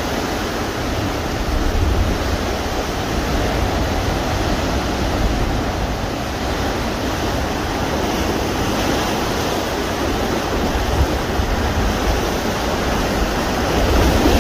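Sea surf breaking and churning against rocks in a rocky cove: a steady rushing wash of waves.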